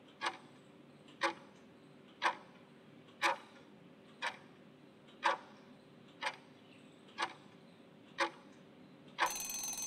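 Countdown-timer sound effect: a clock-like tick once a second, nine ticks in a row, then a brief half-second sound as the countdown runs out.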